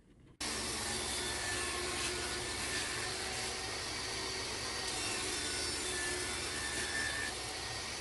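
Jobsite table saw running with its blade spinning freely before the board is fed in: a steady motor whine and whirr that starts abruptly about half a second in.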